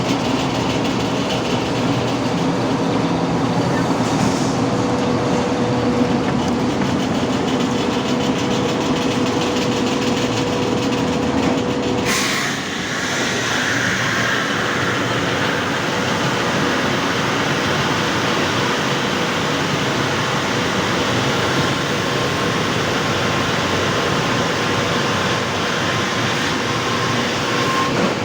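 Industrial plywood sanding machine running steadily as full plywood panels are sanded to a uniform surface, with a faint steady hum; the sound shifts abruptly about twelve seconds in.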